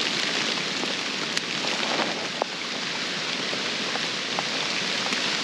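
Steady rain falling, an even hiss with a few faint ticks scattered through it.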